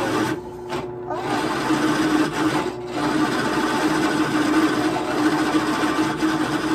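A small electric power tool's motor running steadily at high speed, letting off briefly twice in the first three seconds.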